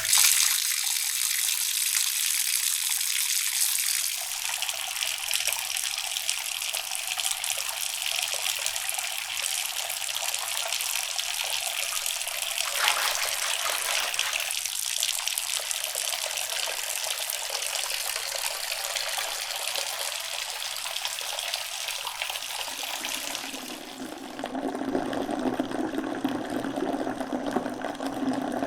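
Water pouring into a bathtub, a steady gushing hiss that starts suddenly. About 24 seconds in, the sound turns lower and fuller.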